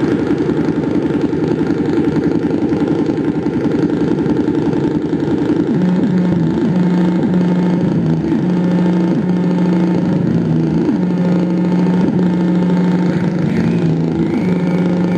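Live electronic noise music from a rig of mixer and effects pedals: a loud, dense low drone. About six seconds in, a steady low tone joins it, cutting in and out with short pitch sweeps between.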